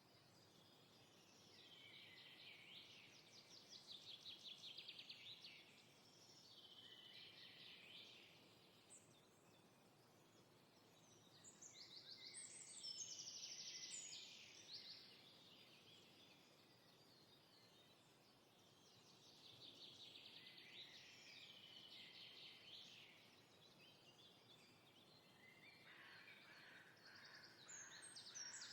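Faint birdsong: about five phrases of rapid trilled notes, each lasting a few seconds, over a soft steady hiss.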